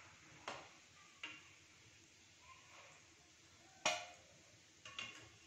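Several sharp clinks of a slotted steel spoon knocking against a steel kadhai and bowl while fried gulab jamuns are lifted out of the ghee, the loudest about four seconds in.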